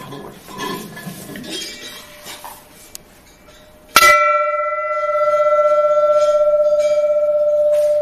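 Small carved brass temple bell (ghanta) lifted by its chain with light metallic clinks, then struck once about halfway through. It rings on with a long, steady bell tone made of several pitches that slowly wavers in loudness.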